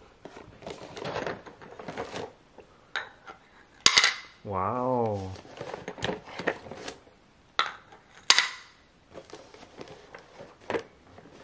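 Small toys knocking and clattering against each other and the cardboard tissue box as they are handled, with two sharp knocks about four and eight seconds in. A brief wavering hum comes about five seconds in.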